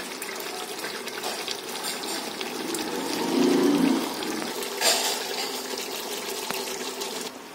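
Chicken curry gravy bubbling and sizzling as it simmers in an open aluminium pot with a little water added, with one brief knock about five seconds in.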